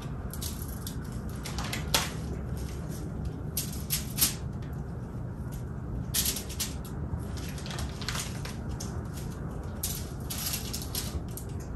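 Plastic wrap crinkling and rustling in short irregular crackles as balls of cookie dough are picked off it and set onto a baking sheet, with a couple of sharper clicks about two and four seconds in, over a steady low room hum.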